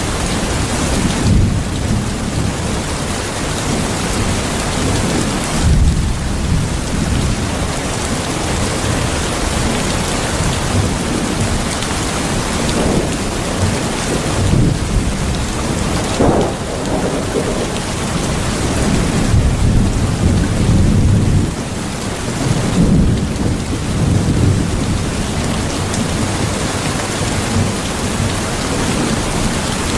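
Heavy rain falling steadily, with low rolling rumbles of thunder swelling and fading underneath.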